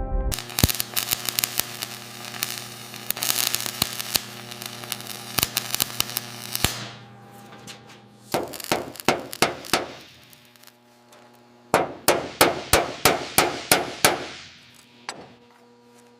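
Sharp metallic clanging strikes over a faint steady hum: a dense clatter for the first six seconds or so, then two runs of strikes at about four a second with a pause between them.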